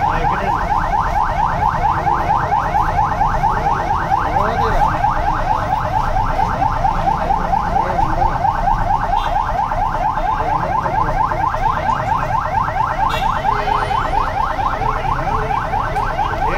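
Electronic siren sounding continuously: a fast, steady run of rising chirps repeated over and over without a break.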